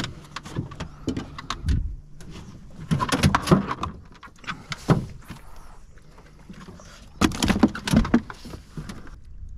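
Knocks and rattles of gear being handled in a small john boat, in two clusters about three seconds in and again about seven seconds in, with a single knock between them.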